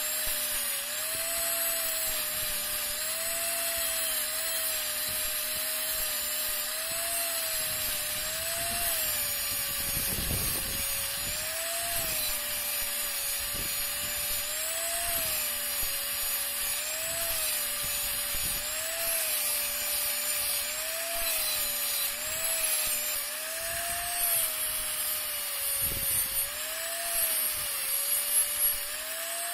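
Angle grinder with a red abrasive disc grinding rust off a steel rod. Its motor whine dips and rises every second or two over a steady grinding hiss, with a few knocks near the end.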